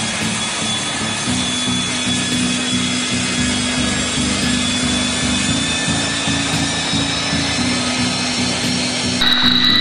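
L-39 Albatros jet trainers' turbofan engines running on the ground, a high steady whine that slowly creeps up in pitch. About nine seconds in, the sound turns suddenly louder and brighter, the engine heard from close by.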